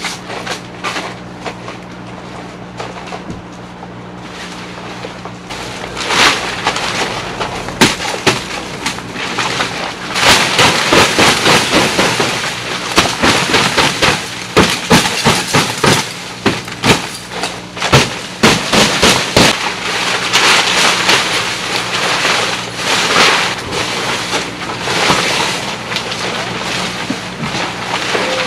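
Irregular knocks and clanks of a hammer on tent pegs, coming thick and fast from about a third of the way in, over rustling and crunching of crushed-stone ground. A low steady hum runs under it.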